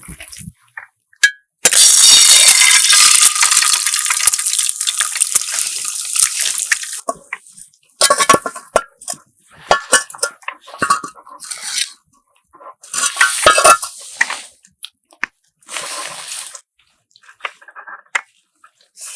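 Water pouring in a steady stream for about five seconds, then scattered small clinks and handling noises.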